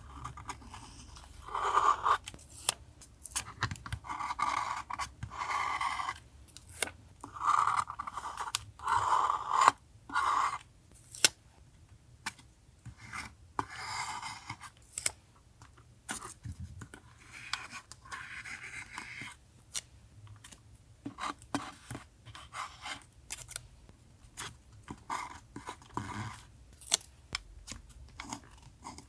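Scissors cutting paper in several longer cuts, among paper handling with many small sharp clicks and snips.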